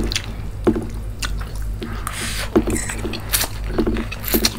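Close-miked wet eating sounds: chewing mouthfuls of saucy noodles and Manchurian, with sharp wet mouth smacks every half second to a second.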